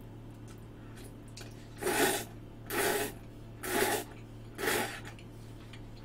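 A person slurping cup spaghetti noodles off a fork, four short slurps about a second apart.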